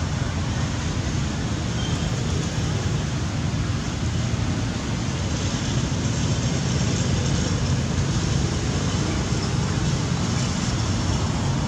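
Steady outdoor background noise: a low rumble with hiss over it, with no distinct calls or knocks standing out.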